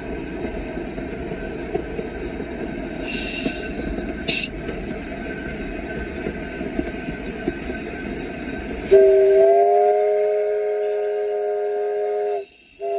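Steam locomotive cab ride: a steady rumble and clatter of the running train, then about nine seconds in the engine's chime steam whistle sounds a long, steady multi-note blast. It breaks off briefly near the end and sounds again.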